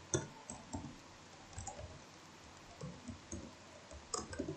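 Keys clicking on a computer keyboard as text is typed: about a dozen irregular keystrokes with short pauses, a few quick ones together near the end.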